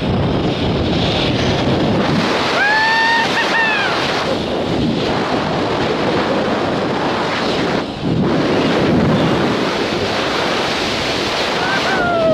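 Wind rushing over the camera's microphone as the jumper drops on the SkyJump descent line, a steady rush. About three seconds in, two brief high tones rise and fall, and another falling tone comes near the end.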